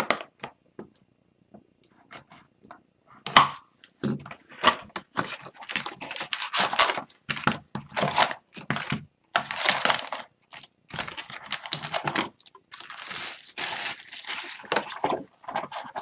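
A utility knife slitting open a cardboard Upper Deck hockey card hobby box, then the box being pulled open and the wrapped card packs lifted out: a few faint ticks, then from about three seconds in a busy run of tearing, scraping and crinkling, loudest just after it starts.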